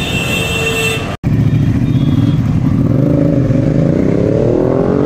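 A sport motorcycle's engine revs and pulls away, its pitch rising steadily over the last couple of seconds as it accelerates.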